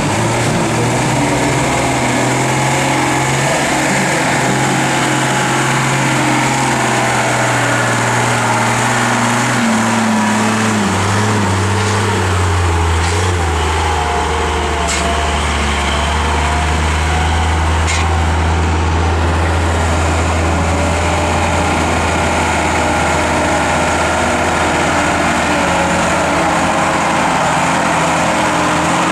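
Unimog off-road trucks' diesel engines running under load at crawling speed. The engine note shifts and drops in pitch about ten to thirteen seconds in, then settles into a lower steady drone, with a few light clicks over it.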